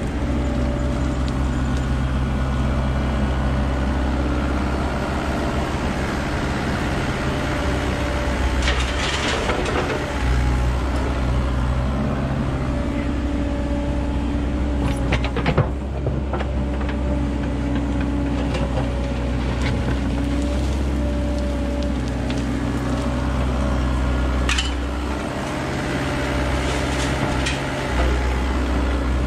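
Kubota mini digger's diesel engine running steadily under hydraulic load as the bucket digs into soil and roots, with a few short crunching scrapes as it breaks ground. Near the end the engine's hum briefly drops.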